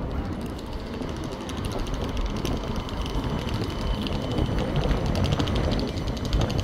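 West Midlands Metro CAF Urbos 3 tram running past at street level: a steady rumble of wheels on the street rails, growing somewhat louder as it draws alongside, with light high ticking over it.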